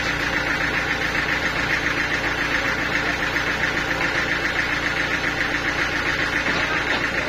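Portable band sawmill running: a steady, even machine noise with no let-up.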